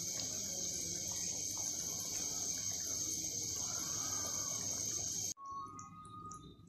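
Chicken karahi simmering in a wok, under a steady high-pitched shrill tone; both cut off suddenly about five seconds in.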